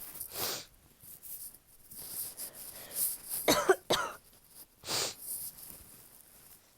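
A person with a runny nose sniffling several times, with two short, harsh coughs about three and a half seconds in, the loudest sounds.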